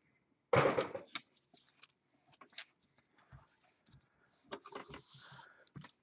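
Hands handling trading cards and their cardboard box on a playmat. There is a louder bump and rustle about half a second in, then scattered light clicks and short rustles, with a brief papery slide near the end.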